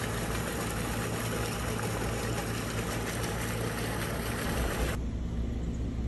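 Water pouring from a hose into a swimming pool, a steady splashing rush over a low steady hum. About five seconds in the splashing cuts off abruptly, leaving a duller low rumble.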